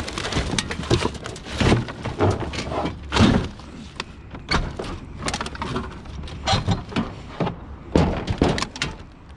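Irregular knocks, clatters and thuds of a discarded stairgate being handled and moved about, with a few louder bangs.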